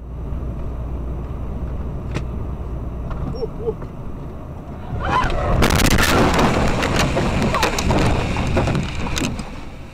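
Steady in-car road and engine rumble on a highway. About five seconds in it gives way to a car crash: a loud, dense clatter of repeated impacts lasting about four seconds.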